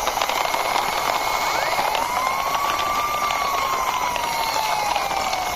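Plastic toy car pushed along by hand, its wheels rattling and clicking over a rough surface under a steady hiss. Over it, an engine-like tone rises about two seconds in and then slowly falls.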